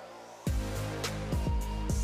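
Background music: a melodic electronic track, with a beat of deep, pitch-dropping bass drum hits coming in about half a second in.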